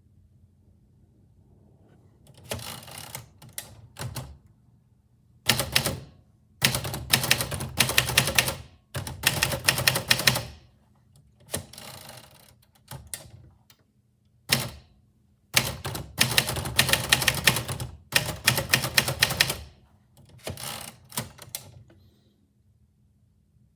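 Typewriter keys being struck in quick runs, bursts of a second to a few seconds broken by short pauses. The typing starts a couple of seconds in and stops shortly before the end.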